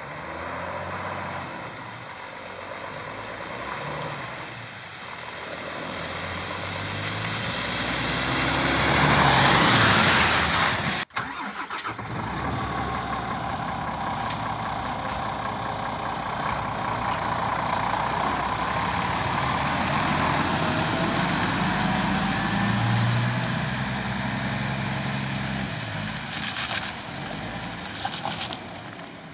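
Scania R410 truck's 13-litre six-cylinder diesel engine and tyres as the tractor unit drives up and passes close, loudest about nine to ten seconds in. After a short break it pulls away, the engine pitch rising as it gathers speed, then it fades near the end.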